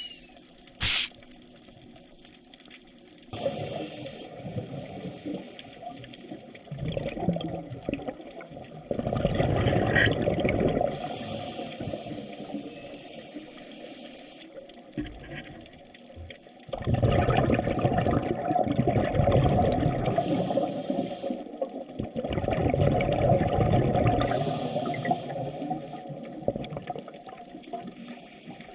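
Moving water sloshing and churning, in several separate stretches that start and stop abruptly.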